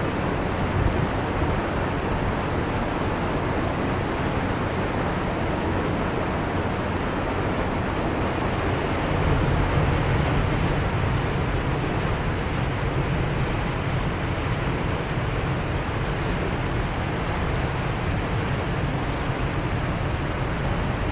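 Steady rush of churning water in a wastewater treatment plant's aeration tanks, with a low rumble that strengthens about nine seconds in.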